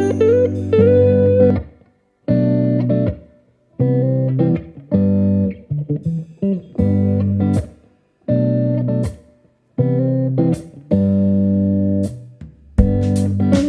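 Background guitar music: plucked chords in short phrases broken by brief pauses.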